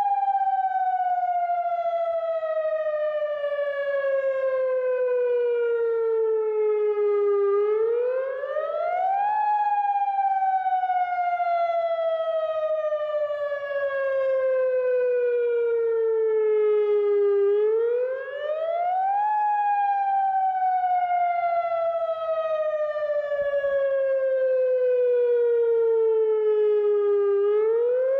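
Federal Signal Modulator 8032B outdoor warning siren sounding its wail for a monthly test. The pitch climbs quickly, then slides slowly down for about eight seconds, a cycle that repeats about every ten seconds, nearly three times over.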